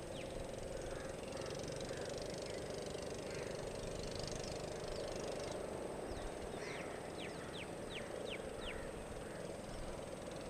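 Steady seaside ambience with a low, even hum throughout, and a quick run of six or seven short falling whistled bird calls starting about seven seconds in.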